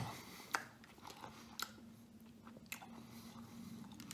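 A man chewing a soft cheese-stuffed garlic knot close to the microphone, making scattered wet mouth clicks about once a second.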